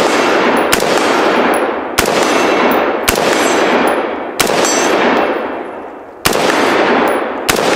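Colt AR-15 A2 Sporter II semi-automatic rifle in .223 firing single paced shots at steel targets: six shots about one to two seconds apart, each followed by a long echo and the ring of struck steel.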